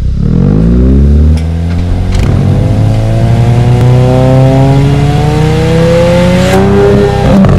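Hyundai N hatchback's sports exhaust under hard acceleration. The revs climb quickly, drop with an upshift just over a second in, then climb steadily for several seconds. Sharp cracks come about two seconds in and again near the end.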